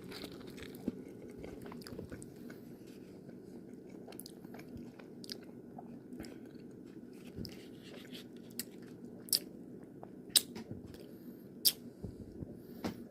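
A person chewing a mouthful of breakfast taco, with scattered short wet mouth clicks and smacks over a steady low hum.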